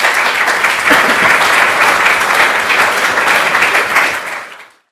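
Audience applauding: dense clapping that fades away and cuts off near the end.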